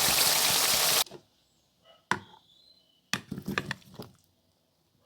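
A loud, steady rushing hiss cuts off abruptly about a second in. Then come a single sharp knock and, a second later, a quick cluster of knocks and clatters from kitchen utensils being handled.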